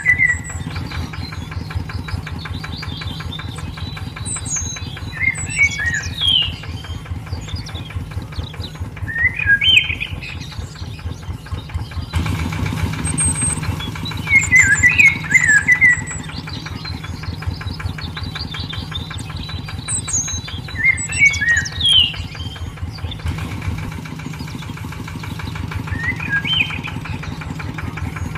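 A small tractor engine runs with a steady, rapid putt-putt, and birds chirp in short bursts every few seconds. The whole mix repeats about every fifteen seconds, like a looped sound track.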